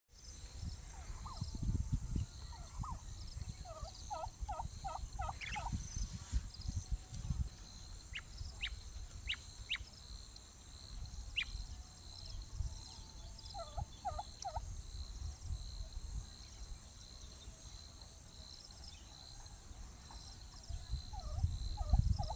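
Turkey gobbling in quick rattling bursts, several times, over a steady high-pitched insect drone, with a few short sharp high bird notes in between.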